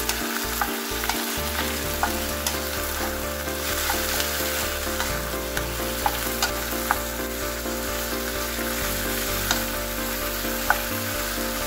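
Potatoes, bell peppers, green peas and onion sizzling in hot oil in a metal wok as a wooden spatula stirs them, with occasional sharp clicks of the spatula against the pan.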